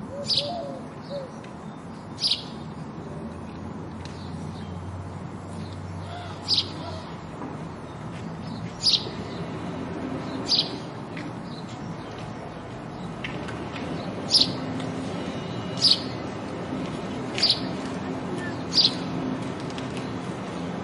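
House sparrow chirping: single short, sharp chirps, about ten of them, one every second or two, over a steady low background hum.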